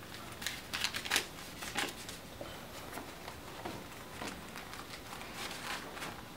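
A wallet being handled and opened: quiet rustling and small sharp clicks, clustered in the first two seconds, then scattered softer rustles.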